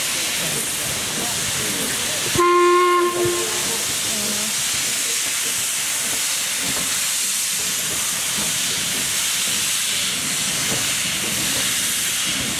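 LMS Princess Coronation class steam locomotive 46233 Duchess of Sutherland hissing steadily as steam blows from its open cylinder drain cocks. A single steam whistle blast about a second long sounds a couple of seconds in.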